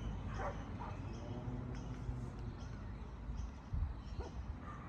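A dog barking a few times over a steady low rumble.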